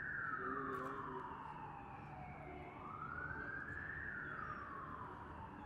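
Emergency-vehicle siren in a slow wail: the pitch rises over about a second, then falls over two to three seconds, and the cycle repeats about every four seconds.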